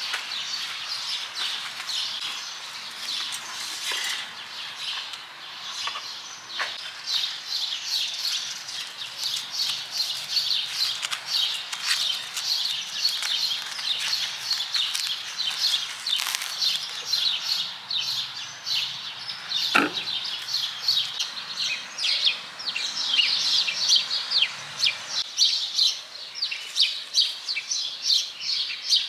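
Small songbirds chirping rapidly and continuously, many short high chirps overlapping. A single sharp knock stands out about two-thirds of the way through.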